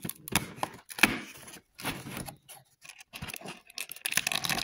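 Perforated cardboard door of an advent calendar being pushed in and torn open by hand, with scratching and rustling of the cardboard in irregular bursts and sharp clicks.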